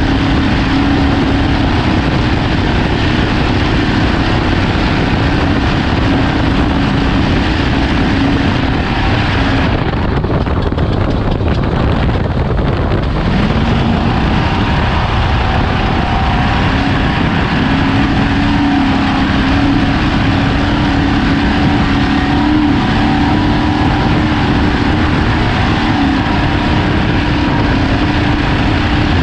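Ford Ranger desert race truck running hard over rough terrain, with a steady engine note under loud road and wind rush. About ten seconds in, the rush eases for roughly three seconds, then the engine note climbs back up and the truck runs on at speed.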